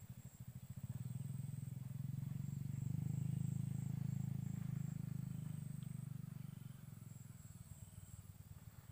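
Low engine rumble that swells over a few seconds and then fades away, as a motor vehicle passing by does.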